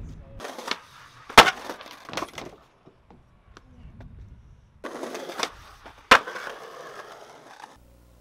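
Skateboard wheels rolling on pavement, with two sharp cracks of the board striking the ground, one about a second and a half in and one about six seconds in. Near the end the sound gives way to a low, steady hum.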